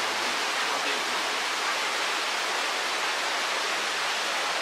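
Steady, even rush of running water from the hot spring.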